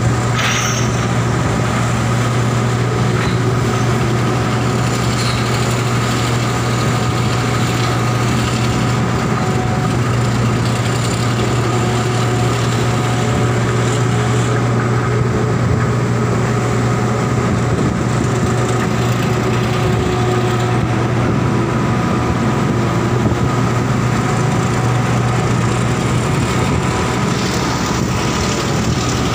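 Steady low drone of heavy diesel machinery running without a break, with faint steady whining tones above it.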